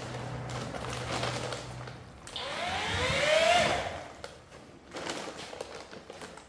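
Wallboard Tools cordless paddle mixer stirring cornice adhesive into water in a bucket. It runs slowly with a low hum, then speeds up with a rising whine about two seconds in, and winds down a couple of seconds later.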